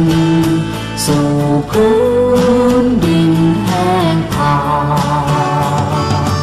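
Background music: a song with a singing voice over acoustic guitar.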